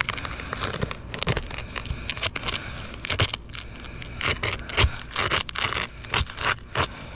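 Asphalt roof shingle being pried loose from the course beneath, its sealed edge pulling apart and the shingle tearing, heard as irregular scraping and crackling with many sharp clicks.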